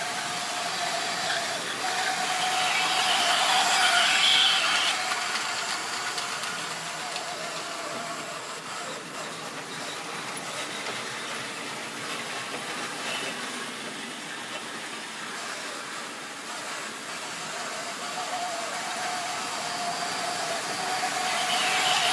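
Model railway locomotive's small electric motor whining, its wheels and the wagons it hauls running on the track. The sound grows louder as the train passes close, about four seconds in and again near the end.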